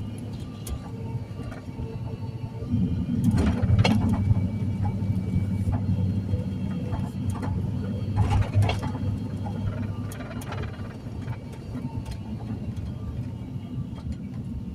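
Car running at low speed, heard from inside the cabin as a steady low rumble, with a few short knocks about four and eight seconds in.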